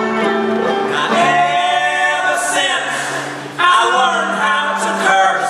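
Live Americana band music: several voices singing together in long held, wordless harmony over instruments, dipping briefly a little past halfway and swelling back.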